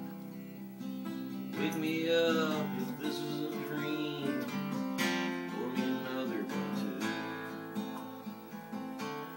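Acoustic guitar strummed and picked in a steady rhythm, an instrumental passage of a song.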